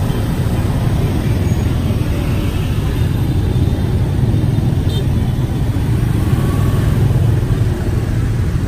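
Car driving in city traffic: a steady low rumble of engine and road noise.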